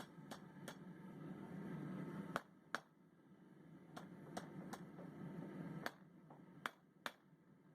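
Blacksmith's hammer striking a hot steel bar on an anvil in about ten sharp, irregularly spaced blows, drawing out a taper. A low hum underneath stops about two seconds in.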